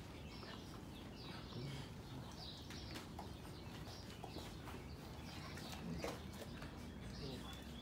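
Sheepadoodle puppies at play: faint high squeaks and whimpers, with scattered small clicks and taps of paws and claws on the floor.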